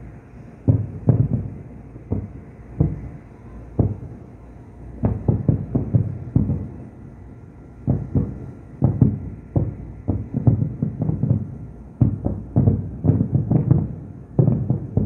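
Aerial fireworks shells bursting in the distance: an irregular run of deep booms with short echoing tails, coming in quick clusters with brief lulls between them.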